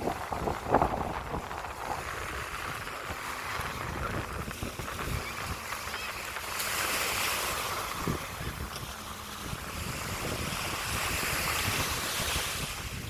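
Sea waves breaking and washing up the shore, swelling louder twice, with strong wind buffeting the microphone as a low rumble.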